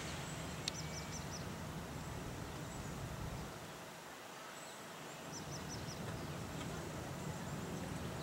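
Outdoor ambience: a steady low rumble with a bird calling twice, each time a quick run of four high chirps, about a second in and again about five seconds in.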